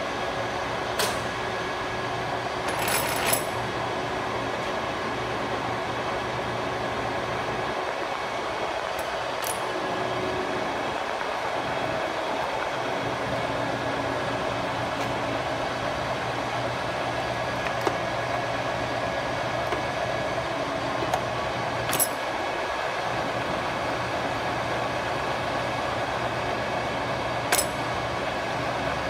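1992 Kingston Heavy Duty 24 gap-bed engine lathe running, a steady hum and gear whine from the headstock and feed gearing. A handful of sharp clicks and clanks stand out as the carriage apron's levers and handwheel are worked.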